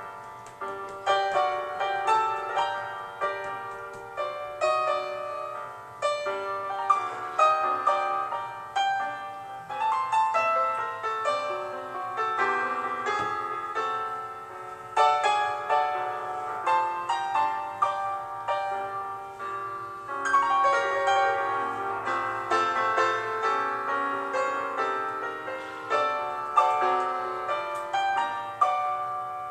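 Background solo piano music, a continuous run of notes.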